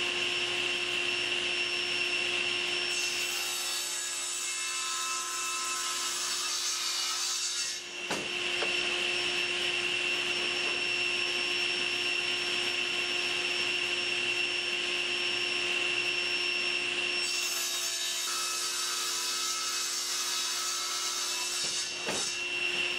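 Table saw running with a steady whine while boards are ripped lengthwise. Two long stretches of brighter cutting noise as the blade goes through the wood, starting about three seconds in and again after about seventeen seconds.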